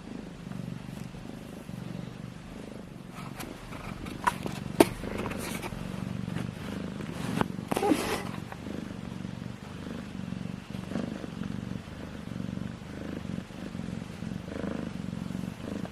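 Domestic cat purring steadily and close up, a continuous low rumble, with a few short clicks and rustles about a quarter and halfway through.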